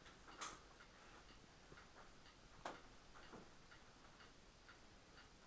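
Near silence with a faint, steady ticking, about two ticks a second, and a couple of slightly louder clicks.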